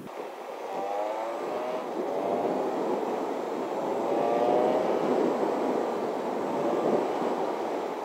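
Motorcycle engine accelerating, its pitch rising twice as it pulls through the gears, over a steady rush of road and wind noise.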